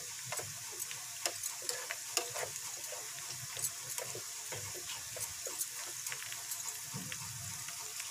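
Thinly sliced onions deep-frying in mustard oil, a steady crackling sizzle with many small pops, stirred with a spoon now and then as they are fried until brown.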